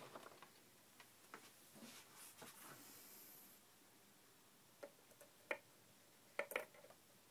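Near silence, with a few faint clicks and taps from multimeter test probes and their leads being handled, mostly in the second half.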